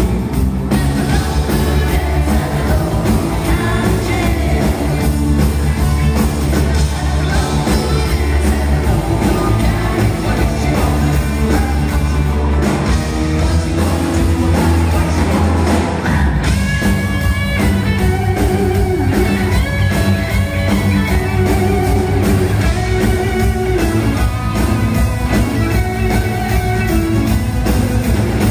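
Live rock band playing at full volume: electric guitars, bass guitar and drums with sung vocals over a steady beat.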